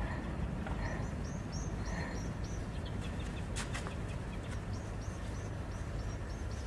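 A small bird chirping in two quick series of short high notes, about four a second, over a steady low rumble, with a single sharp click near the middle.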